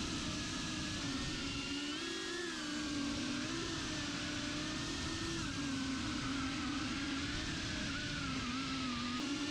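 Small FPV quadcopter's brushless motors and propellers whirring, their pitch wavering up and down with the throttle, over a steady rush of wind noise.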